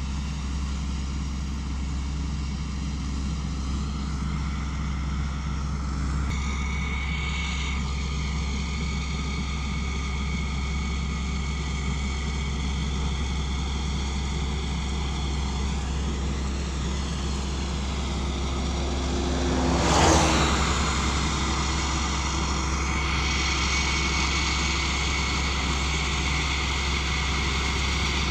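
Kaset Pattana rice combine harvester running steadily while harvesting, a constant machine drone. About two-thirds of the way through there is a brief louder rushing swell.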